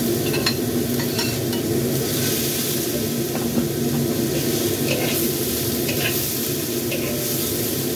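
Stir-frying in a wok: julienned chayote, carrot and fried fish tofu sizzling in oil while a metal spatula scrapes and taps against the wok in short irregular clicks.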